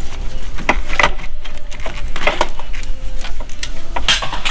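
Irregular metal clinks, knocks and scrapes as a turbo downpipe with its catalytic converter is worked loose by hand among the heat-shielded exhaust parts in an engine bay.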